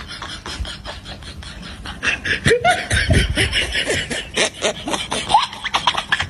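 A person laughing, quietly at first, then hard and fast from about two seconds in, in rapid breathy laughs.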